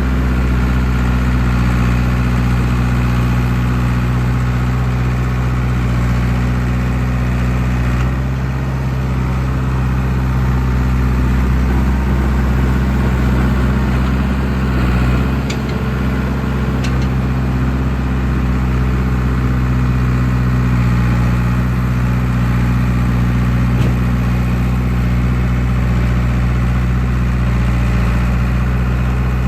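John Deere 450B crawler dozer's diesel engine idling steadily while it warms up after a hard cold start.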